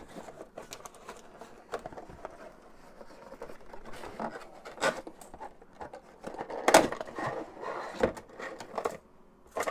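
Packaging and small parts of a video doorbell kit being handled: an uneven string of rustles, clicks and knocks, the loudest knock about seven seconds in.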